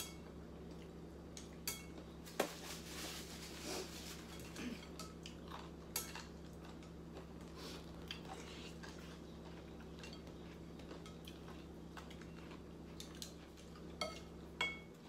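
Spoons and chopsticks clinking and tapping against ceramic soup bowls while eating noodle soup: scattered sharp knocks, the loudest about two and a half seconds in, over a steady low hum.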